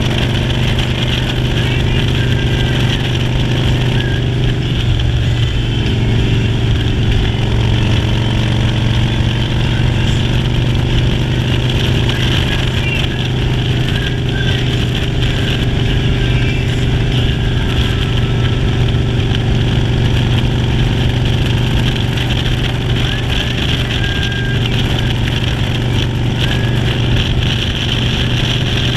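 Motorcycle engine running steadily during a ride, its pitch holding nearly constant, over a continuous rush of noise.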